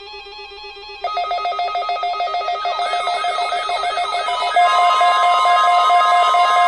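Electronic alert tones from a NOAA Weather Radio weekly test. Pulsing tones start abruptly about a second in. About four and a half seconds in, a steady, louder tone joins them: the 1050 Hz weather radio warning alarm.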